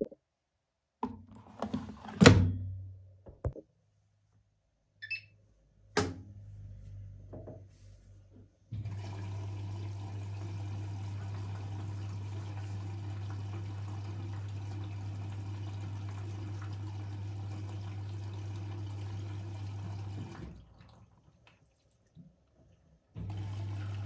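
A few sharp knocks and clicks in the first seconds, the loudest about two seconds in. Then a Bosch Serie 6 front-loading washing machine fills its drum: a steady hum with water rushing in from about nine seconds, stopping at about twenty seconds and starting again near the end.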